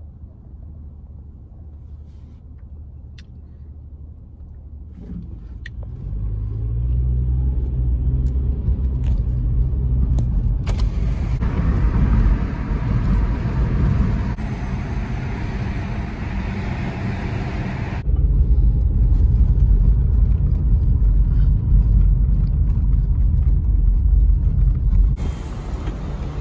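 A moving car's road noise, heard from inside: a steady low rumble that grows louder about six seconds in. A rushing hiss joins for several seconds in the middle.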